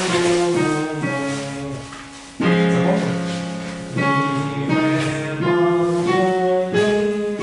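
Instrumental accompaniment with piano-like chords changing about once a second. It dies away about two seconds in, and a new chord starts sharply just after.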